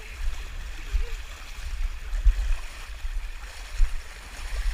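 Rushing river water churning around hikers wading across the Eagle River, with an uneven low rumble buffeting the microphone.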